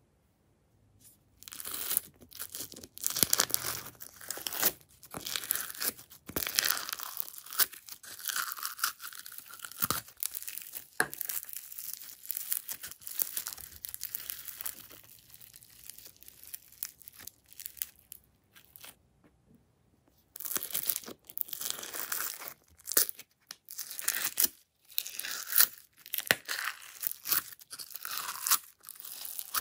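Foam-bead slime (floam) squeezed and kneaded by hand out of egg-shaped plastic containers: irregular crunching and crackling of the tiny foam beads, with a brief lull about two-thirds of the way through.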